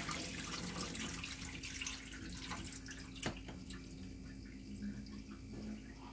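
Cloudy rinse water pouring off washed rice from a metal pot into a stainless steel sink, fading to a trickle and drips. A faint steady hum runs underneath, with one sharp click a little past three seconds in.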